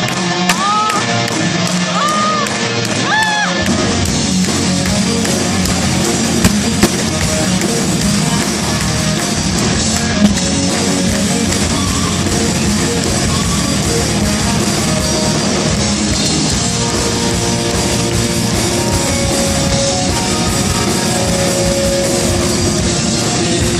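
Live band music: guitar at first, with the full band filling in about three and a half seconds in and playing on steadily.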